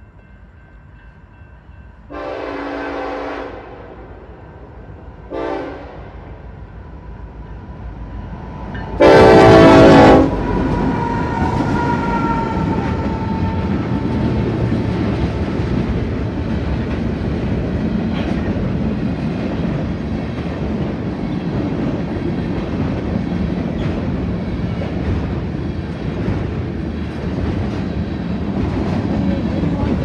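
Union Pacific SD70AH locomotive's air horn sounding for a grade crossing: a long blast, a short one, then a much louder long blast as it reaches the crossing, over a faint ringing crossing bell. Then the train passes close by: a steady rumble of the locomotives and the rattle and clatter of freight cars on the rails.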